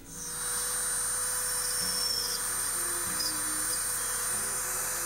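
Handheld rotary tool spinning up and running at a steady high-pitched whine as it grinds away the foam of a squirrel mannikin, cutting an undercut in a leg.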